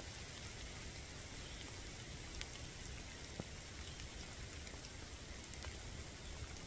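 Rain falling through the woodland trees: a faint, steady hiss with a few scattered drop ticks.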